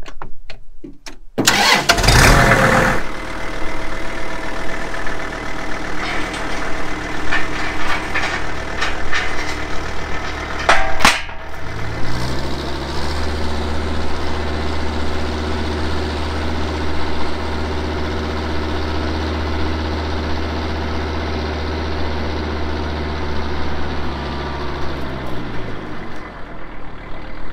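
Compact tractor engine started with the key: it cranks briefly and catches about two seconds in, then idles. About twelve seconds in it is revved up to a steady higher speed as the tractor moves off, and drops back to idle near the end.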